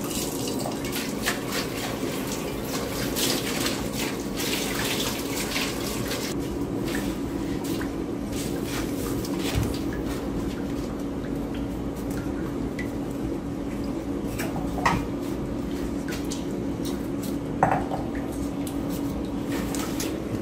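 Raw chicken pieces being handled in a stainless steel pot by plastic-gloved hands: wet slaps, rustling and small clinks against the metal, busiest in the first few seconds, with two sharper clicks in the second half. A steady low hum runs underneath.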